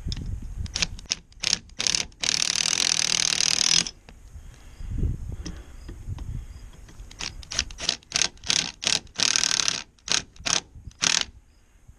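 Ryobi 18V cordless hammer drill run in a series of short bursts, with two longer runs of a second or two, fastening the electrical box to the block wall.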